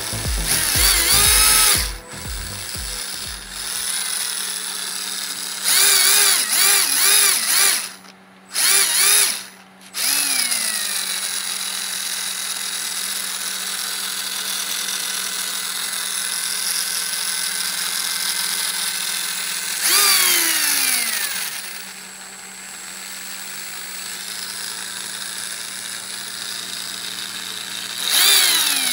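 RC crawler's 540 brushed electric motor driving the transmission and spur gear, revved in short bursts so its whine rises and falls. Between the bursts it runs at a steadier, quieter speed.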